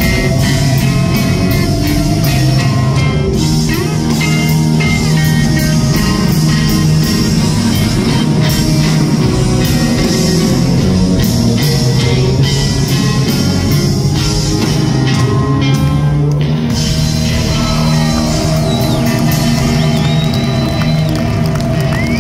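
A live blues-rock band playing through a PA: amplified electric guitars, pedal steel guitar, electric bass and drum kit. Sliding notes come in over the band near the end.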